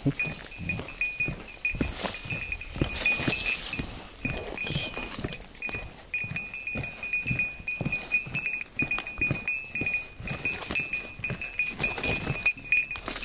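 Footsteps on a wet wooden boardwalk at a walking pace, about two a second, with a small bell jingling in time with each step.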